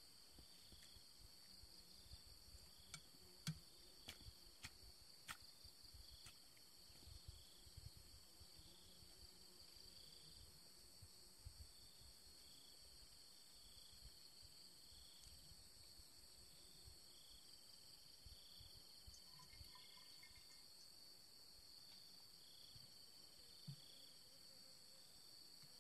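Faint steady drone of field insects with a repeating higher chirp. Soft low rustling and a few small knocks come and go through the first two-thirds.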